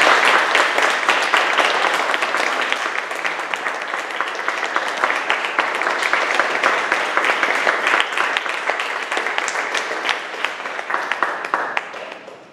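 Audience applauding, strongest at the start, easing gradually and dying away near the end.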